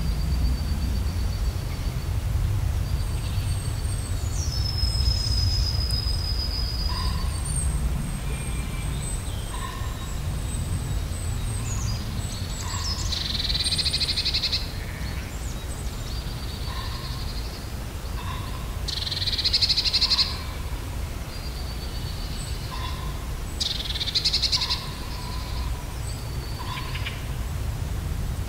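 Several wild birds singing. There are thin high whistles, a short lower note repeated every second or two, and three louder song phrases, about halfway through, two-thirds in and near the end, all over a steady low rumble.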